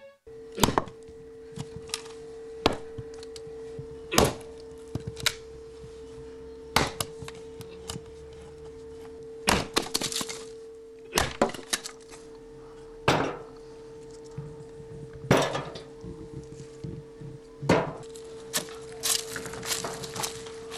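Sharp knocks and cracks at irregular intervals of about one to two seconds, over a steady low hum.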